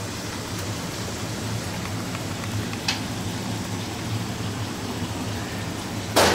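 Steady rushing background noise of a commercial kitchen's gas burners and extraction, with a low hum under it. A light metal clink about three seconds in and a loud sharp clink of steel utensils at the very end.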